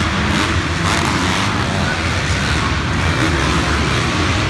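Several 250-class motocross bikes running and revving together on an indoor dirt track, a loud, continuous engine racket.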